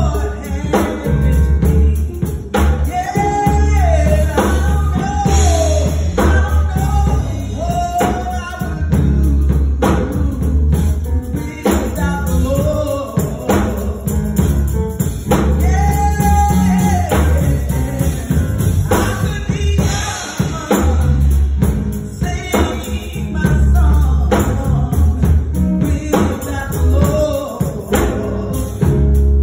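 A woman singing a gospel solo into a handheld microphone over backing music with heavy bass and percussion.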